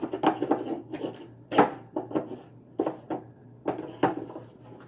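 Hands squeezing and working homemade glue-and-borax slime: a run of irregular sharp, sticky clicks and squelches, several a second.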